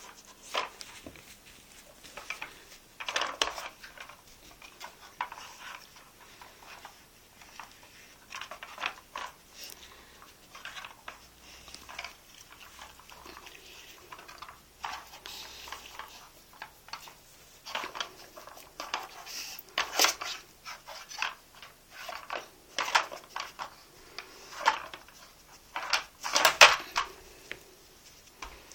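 Plastic layers of a Dog Tornado puzzle toy clattering, knocking and scraping irregularly as a dog works them to get at the treats, with the loudest clatters about two-thirds of the way through and near the end.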